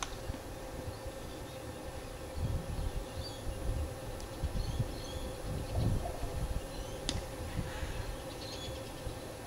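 Outdoor field ambience: wind buffeting the microphone in uneven gusts, a steady faint drone and scattered faint bird chirps, with one sharp click about seven seconds in.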